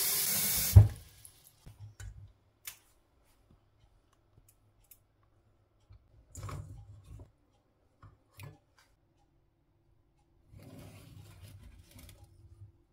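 Tap water running into a stainless-steel pressure cooker stops with a sharp knock about a second in. After that come scattered light knocks and short handling sounds from the pot and beetroots.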